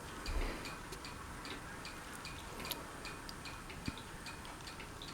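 Hunter Coastal Breeze Plus ceiling fan running, with a faint, regular ticking about three times a second over a soft hum of air.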